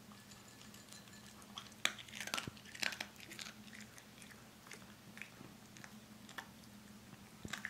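Norfolk terrier eating dry kibble: crisp crunches, thickest about two to three seconds in, then sparser chewing.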